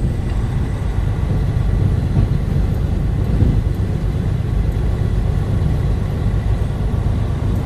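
Truck's engine and road noise heard inside the cab while driving in third gear, a steady low rumble.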